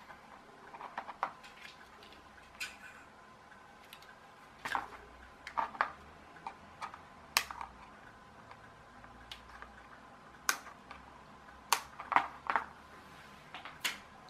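Sharp clicks of Plato 170 flush side cutters snipping off soldered component leads on a small circuit board: about a dozen irregular snips, several in quick succession near the end.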